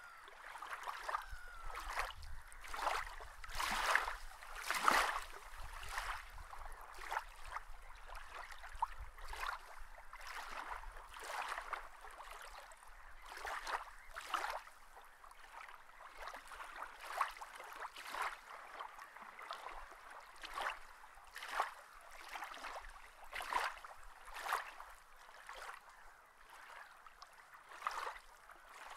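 Water lapping and splashing in small, irregular splashes, a few each second, with no steady flow under them.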